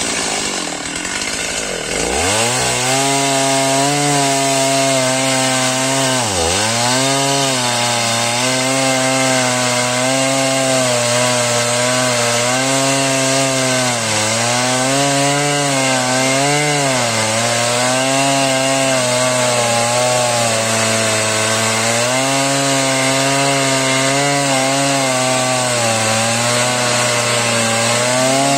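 Two-stroke chainsaw at full throttle cutting into a big tree trunk. Its engine revs up near the start, then holds a steady note under load, dipping briefly in pitch twice as the chain bites into the wood.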